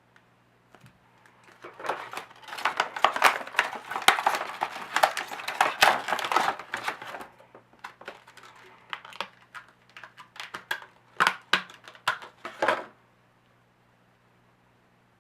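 Packaging being handled and opened during an unboxing: a dense run of crinkling and rapid clicks, then sparser crinkles and clicks that stop about two seconds before the end.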